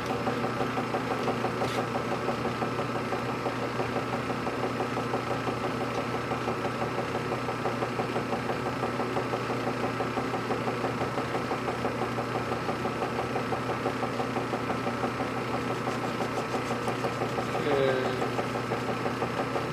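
Metal lathe running at high spindle speed: a steady motor and headstock hum with a fast, even pulse.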